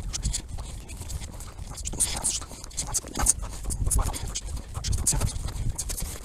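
A person walking through grass: irregular scuffing and rustling steps, with the leather jacket rubbing against the clip-on microphone and wind rumbling on it.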